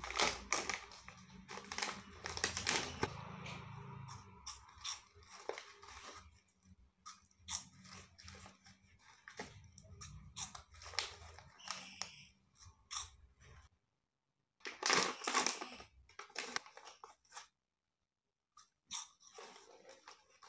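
Crunchy puffed snacks (Alamii chicken mushroom puffs) being bitten and chewed close to the microphone: dense crackling over the first few seconds, then scattered crisp crunches, with a louder cluster about fifteen seconds in.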